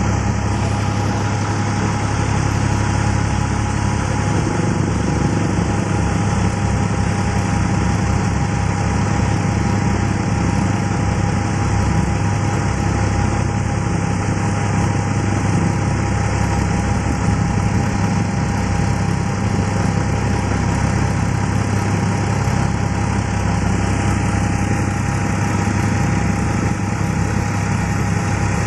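Tractor-driven multicrop thresher running under load: a loud steady drone of the tractor engine and the spinning threshing drum and fans, with a thin steady whine above it.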